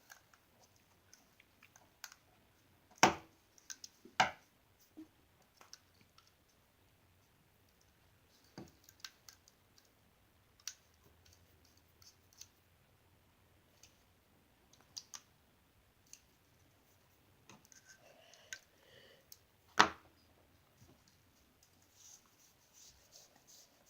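Scattered sharp clicks and taps of small metal knife parts and tools being handled while a folding knife is put back together. Three louder clicks come about 3 s, 4 s and 20 s in.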